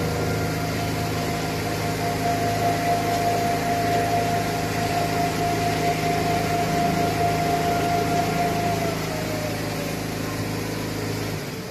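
Quilting production line machinery, its rollers and drive motors running with a steady hum and a whine as fabric feeds through. Near the end the whine falls in pitch and the hum cuts off.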